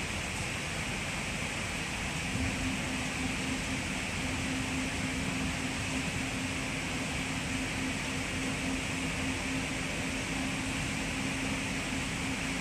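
Steady running noise inside a moving NS Intercity train carriage: an even rumble and hiss, with a steady low hum that sets in about two seconds in.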